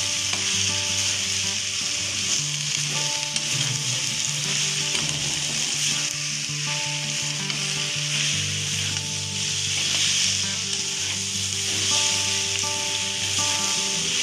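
Shredded cabbage, carrot and onion sizzling steadily in a hot steel wok while they are stir-fried, a steel spatula stirring and tossing the vegetables.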